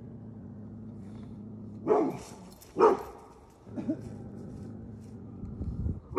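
Beauceron barking at white-sheeted 'ghost' figures: three sharp barks about a second apart, the last one weaker.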